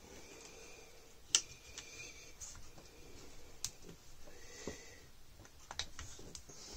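Scattered light metallic clicks and taps as a locking clamp (vise grip) is fitted and adjusted on an aluminium bar held in a bench vise, the sharpest about a second and a half in.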